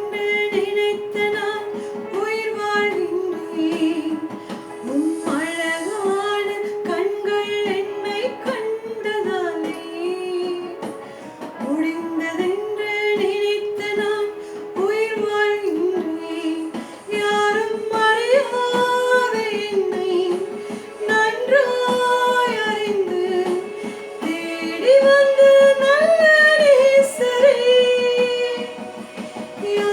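A woman singing a praise and worship song, her voice carrying a melody of held, gliding notes with music behind it.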